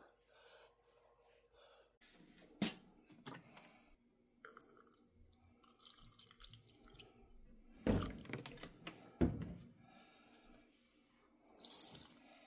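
Liquid laundry detergent poured from a jug into a plastic measuring cup, then tipped into a top-load washer's drum onto the clothes. A few sharp knocks of the jug and cup are handled in between, the loudest two near the middle.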